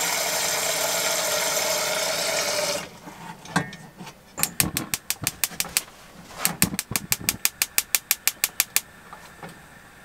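Water running from a tap into a metal cooking pot, cutting off suddenly about three seconds in; a knock as the pot is set down, then two runs of rapid, even clicking, about eight clicks a second, from a gas hob's spark igniter.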